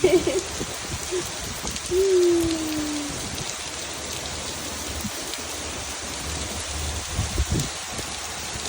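Steady rainfall, an even hiss of drops on surfaces.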